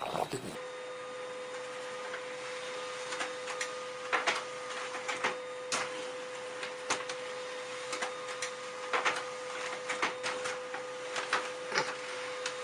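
Desktop printer running: a steady hum with a fixed tone, broken by many irregular sharp clicks.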